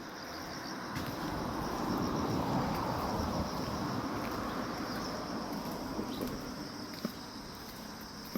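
Grass insects such as crickets chirping in a steady, high, pulsing trill. Under them a broad low rush swells about a second in and fades over the next few seconds, and a single sharp click comes near the end.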